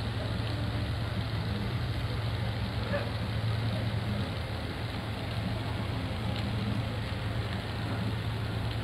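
Steady low mechanical hum, like an idling engine, over an even haze of background noise.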